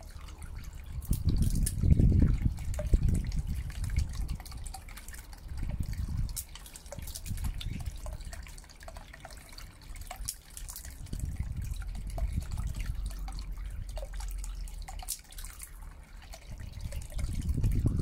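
Small submersible fountain pump throwing a jet of water that splashes and drips back into a shallow tub, its splashing rising and falling in loudness several times.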